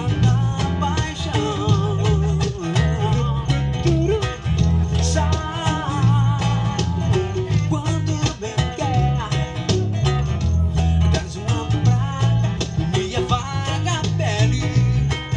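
Music with a steady beat, bass and guitar, and a singing voice over it.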